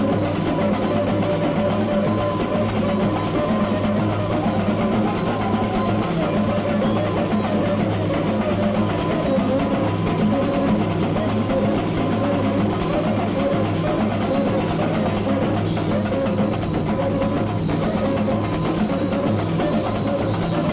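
Samba music with drums and percussion, playing steadily without a break.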